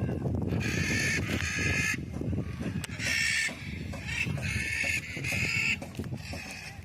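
Macaws squawking: about five harsh calls, each around half a second long, over low background noise.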